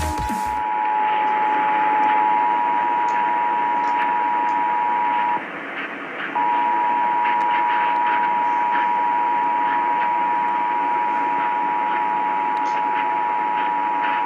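Emergency Alert System attention signal, a steady two-tone alert tone, received over AM radio with hiss and faint crackle. It drops out for about a second around five seconds in, then resumes. It signals the start of a required monthly EAS test.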